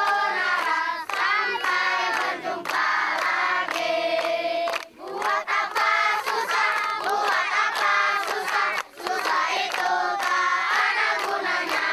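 A crowd of schoolchildren singing a goodbye song together in unison, in phrases broken by short pauses for breath.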